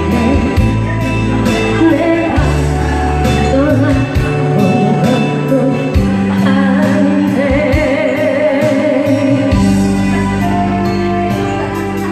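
Backing music with a steady beat and bass line, with a sung or lead melody over it.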